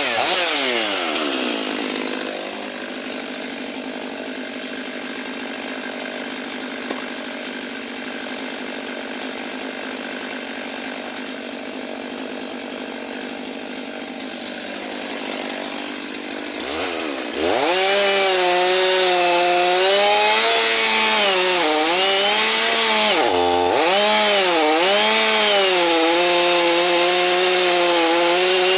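Stihl MS 500i fuel-injected two-stroke chainsaw dropping from full revs to idle and idling steadily for about fifteen seconds. It then revs back up to high speed, its pitch dipping again and again as the chain bogs under load, ripping along the grain of the wood.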